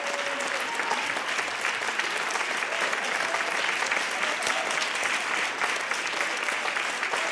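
Audience applauding steadily in a hall, a dense even clapping.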